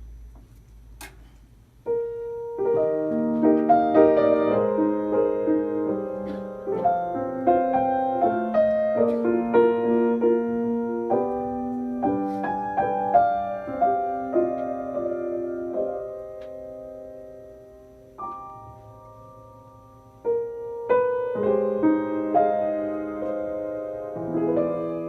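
Solo piano playing a slow intro of chords and melody, entering about two seconds in, fading to a few held notes with a short lull, then starting up again near the end.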